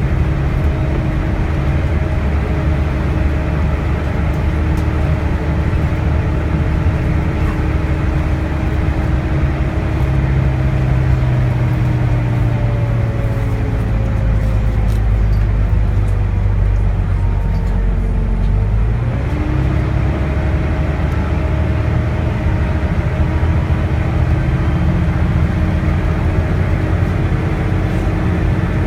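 Volvo B9TL bus's Volvo D9A diesel engine pulling hard up a hill with its hoovering turbo whine. The revs slowly sag under the load, then pick up again with a gear change in the ZF Ecomat automatic gearbox about two-thirds of the way through.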